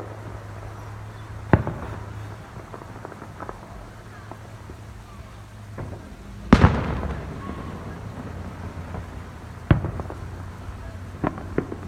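Fireworks shells bursting in the distance: a series of sharp booms with smaller crackles between them. The loudest comes about six and a half seconds in and rolls away in a long fading echo, and several more booms follow near the end.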